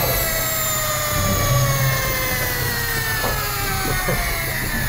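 Electric deep-drop fishing reel motor winding in line against a hooked fish, its whine slowly falling in pitch as it comes under load, over a steady low hum.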